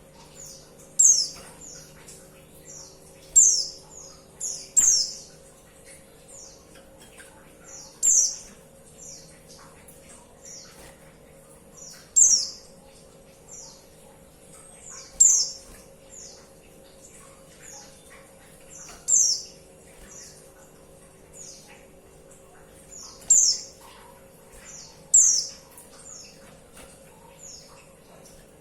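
Female white-eye (pleci) calling: short, high, falling chirps repeated about every second, with a louder call every two to four seconds. A faint steady hum lies beneath.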